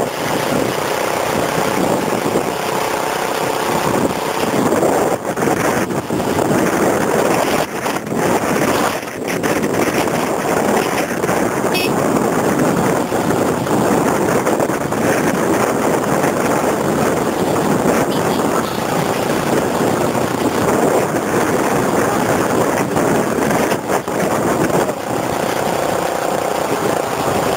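Loud, steady rush of storm wind on the microphone while moving along a road, with a vehicle engine running under it.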